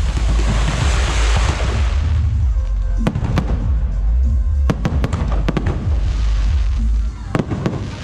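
Fireworks going off over loud music with a heavy bass: a dense crackling for about the first two seconds, then a string of sharp, separate bangs.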